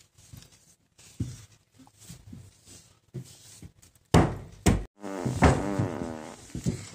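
A few soft knocks and thumps, then two sharp loud thuds about four seconds in, followed by a young child's drawn-out, wavering vocal cry.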